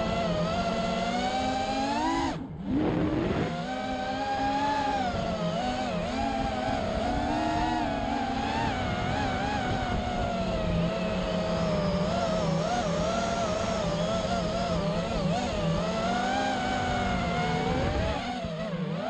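FPV mini quadcopter's motors and propellers whining, the pitch wavering up and down continuously with throttle. The whine drops away briefly a little over two seconds in, then climbs back.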